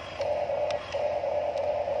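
Electric motors of a radio-controlled toy excavator whining steadily as the arm and bucket move. The whine breaks off briefly twice, and there are a few sharp clicks.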